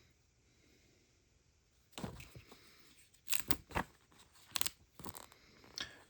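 Packaging being handled and torn open during an unboxing, with a run of short, sharp tearing and crinkling noises starting about two seconds in.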